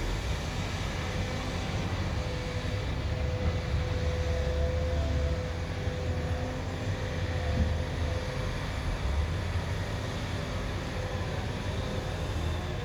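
Heavy construction machinery, an excavator and a wheel loader, running with a steady deep engine rumble. A steady whine runs through the middle few seconds.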